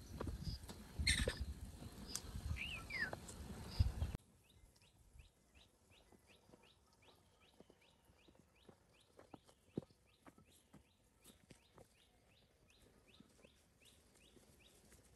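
Footsteps on a dry dirt path, with a single bird call partway through. About four seconds in, the sound drops to quiet outdoor ambience: a short high chirp repeats about three times a second, with faint scattered steps.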